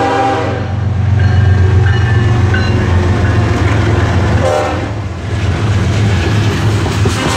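BNSF diesel freight locomotive passing close by. Its multi-note air horn cuts off about half a second in and gives a short second blast about four and a half seconds in, over the steady heavy rumble of the engine and the rolling freight cars, with a few brief high-pitched squeals.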